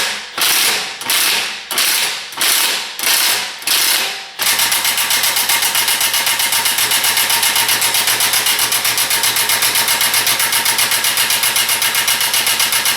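Ratchet wrench clicking on a bolt at the transmission pan: about seven separate strokes over the first four seconds or so, then fast, continuous ratcheting at about five pulses a second to the end.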